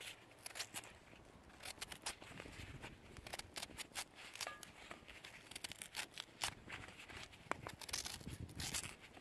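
Faint, irregular crackling and popping from sweet potato chunks cooking with a little water in a cast iron pan over a twig-fired rocket stove.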